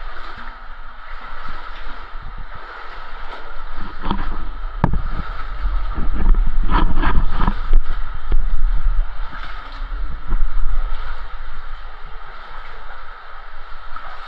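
Water sloshing and gurgling as someone moves through water, with scattered knocks and a low rumble of wind or handling on the microphone. It is busiest about halfway through.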